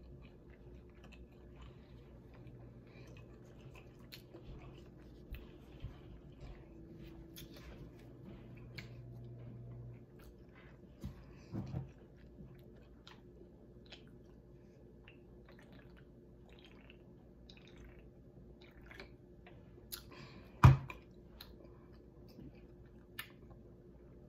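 A person chewing a mouthful of vegan street taco, with small wet clicks and smacks of the mouth throughout. A faint low hum stops about ten seconds in, and a single sharp thump, the loudest sound, comes near the end.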